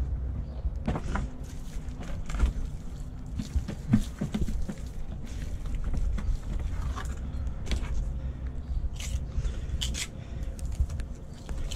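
Mason's steel trowel scraping and spreading wet mortar onto the back of a bluestone flagstone, with mortar scooped by hand from a plastic bucket: irregular short scrapes and knocks, the loudest about four seconds in, over a low rumble.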